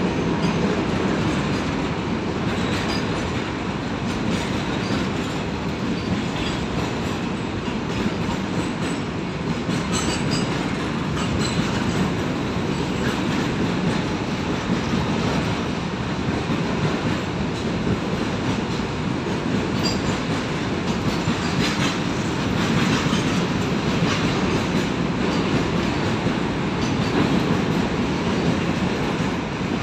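Goods train of covered wagons rolling steadily past: a continuous rumble of wheels on rail, with scattered clicks as the wheels pass over rail joints.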